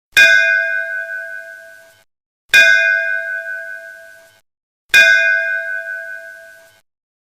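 Metal school bell struck three times, about two and a half seconds apart. Each strike rings with a bright, high tone that dies away over about two seconds, then cuts off abruptly.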